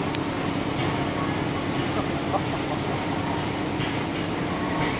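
Steady hum of machinery running in the steam shed, with a few faint ticks.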